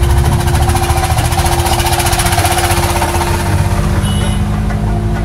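Motor vehicle engine running steadily, a low rumble with a fast, even rattling pulse and a steady hum over it.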